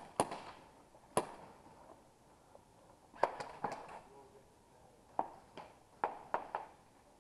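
KJW MK1 non-blowback airsoft gas pistol firing single shots: about nine sharp pops, some in quick pairs, with no slide cycling between them.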